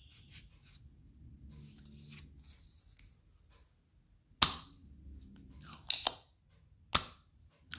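Aluminium spring-loaded desoldering pump (solder sucker) being handled, then cocked and fired: a few sharp clicks and snaps, the loudest about halfway through, then a close pair and one more over the next few seconds, after faint rustling.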